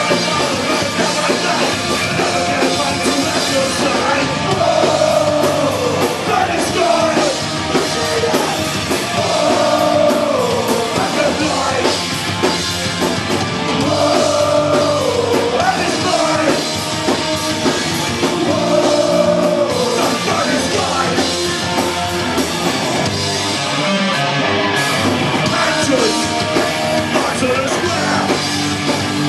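Punk rock band playing live: electric guitar and drums, with a shouted lead vocal, loud and steady throughout.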